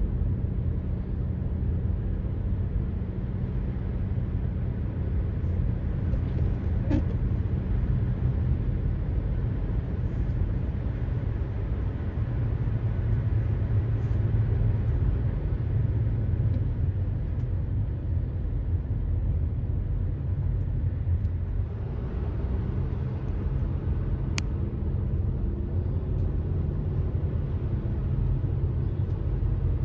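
Steady low rumble of a running vehicle, with a low hum that shifts slightly about two-thirds of the way through.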